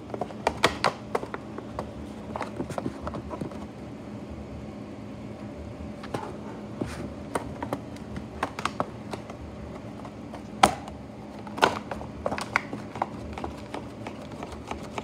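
Thin clear plastic box clicking and crackling in irregular clusters of sharp taps as the cat shifts against it, over a faint steady hum.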